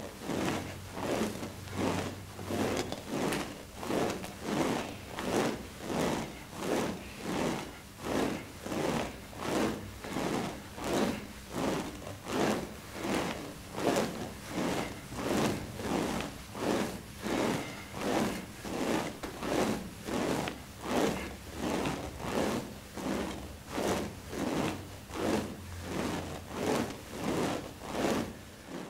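Smovey vibration ring swung back and forth by hand, its steel balls rolling around inside the grooved tube with a rushing rattle on each swing, in a steady rhythm of about three swings every two seconds.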